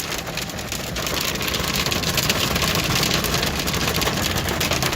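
Hail hitting a car's roof and windshield in a dense patter of small impacts, over steady vehicle noise, growing louder about a second in.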